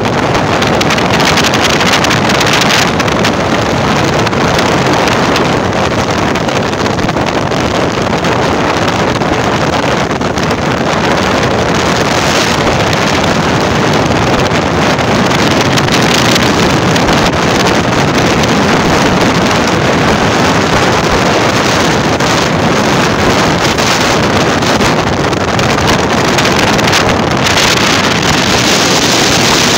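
Steady loud rush of wind buffeting the microphone, mixed with the road noise of the vehicle it is filmed from as it drives along.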